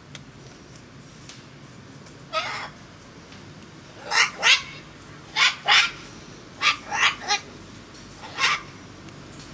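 Young umbrella cockatoos calling: a string of about nine short squawks, beginning about two seconds in and coming mostly in quick pairs and threes.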